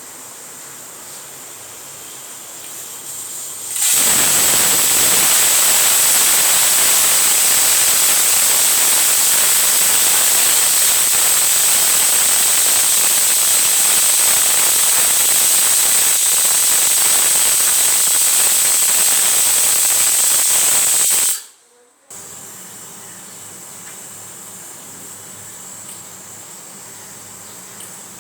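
Pressure cooker whistle blowing: steam jets out of the valve in a loud, steady hiss with a shrill high whistle tone held throughout, cutting off suddenly about 21 seconds in. A fainter hiss precedes it and follows it.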